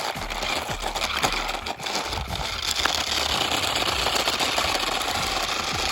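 Small electric RC car's motor and gears whirring as its wheels spin, louder from about three seconds in, with wind buffeting the microphone.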